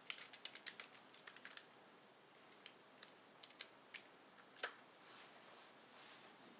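Faint computer keyboard typing: a quick run of keystrokes, then a few scattered single key presses, the last of them the loudest.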